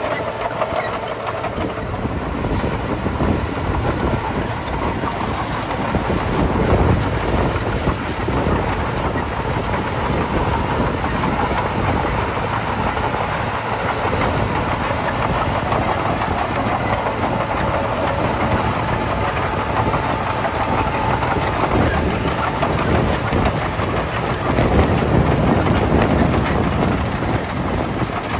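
Komatsu D41P bulldozer working, its diesel engine and steel tracks running steadily as it pushes gravel, getting louder twice as it takes on more load.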